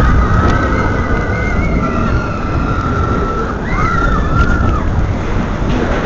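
Expedition Everest roller coaster train running along its track, a loud, heavy rumble. High wavering squeals sound over it, ending in two short rising-and-falling ones about four seconds in.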